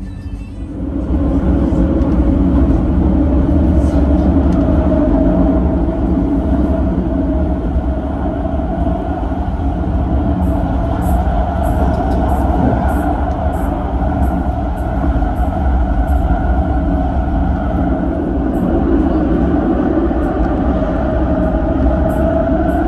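Tram running along its rails: a steady low rumble with a held motor whine, growing louder about a second in.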